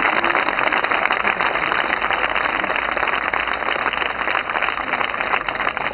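A large crowd applauding with dense, steady clapping.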